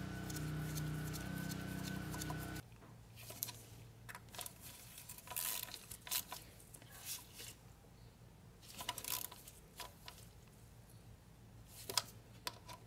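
A small hand ratchet running in the tiny 8 mm bolts of the neutral safety switch on a Ford E350 automatic transmission: scattered light clicks and metal scrapes. A steady machine hum sounds for the first couple of seconds and cuts off suddenly.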